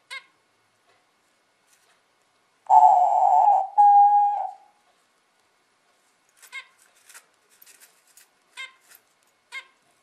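Diamond dove calling: a loud, hoarse note of about a second running straight into a clear, steady coo, followed a couple of seconds later by several faint short chirps.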